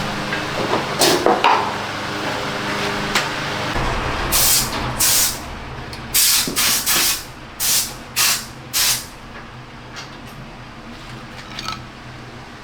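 A run of about seven short, sharp sprays of hissing air or liquid from a spray nozzle, each under a second long. A steady low machine hum runs under the first few seconds.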